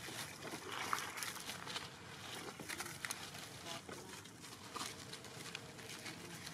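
Dry leaf litter crackling and rustling in scattered short clicks as long-tailed macaques move over it, with a sharper crackle about a second in.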